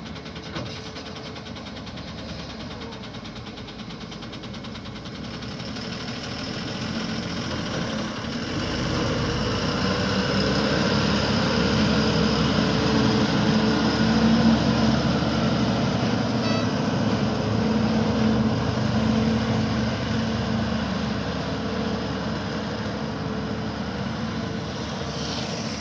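Ashok Leyland 2820 container truck's diesel engine running as the truck moves slowly past at close range. It grows steadily louder over the first dozen seconds or so, then slowly fades as the truck pulls away.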